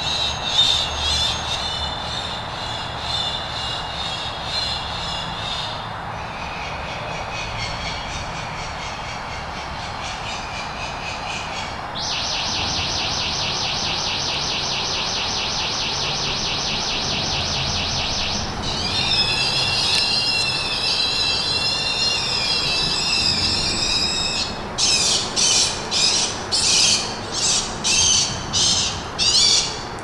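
Bird-deterrent loudspeakers mounted under a bridge, playing a looping sequence of bird sounds and other electronic noises that changes to a new sound about every six seconds. Near the end comes a run of about ten short, loud calls, about two a second, over steady background noise.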